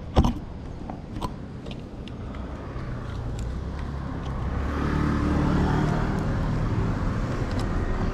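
A sharp click near the start and a smaller one about a second later, then a low rumbling noise that swells to a peak about five seconds in and eases slowly, like a vehicle going by.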